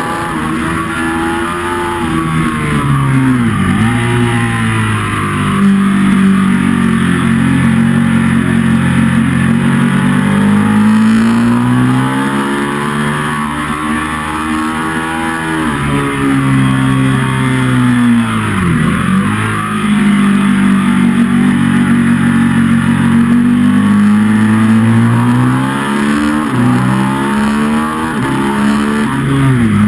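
Ducati 1199 Panigale's Superquadro V-twin engine being ridden hard on track, heard from on the bike: the engine note climbs steadily under acceleration and drops sharply three times, about four seconds in, about two-thirds through and at the very end, over a steady rush of wind noise.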